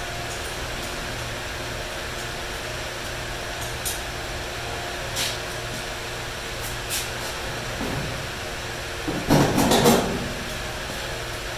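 A steady low hum of workshop background noise, with a few light clicks and a short burst of clattering handling noise about nine seconds in.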